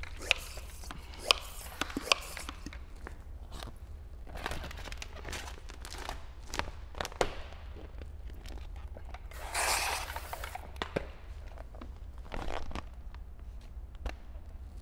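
Handling noises from working a sheet of paint protection film on a car hood: scattered light taps and clicks, crinkling and rustling of the film, and a short hiss lasting about a second around two-thirds of the way in. A low steady hum runs underneath.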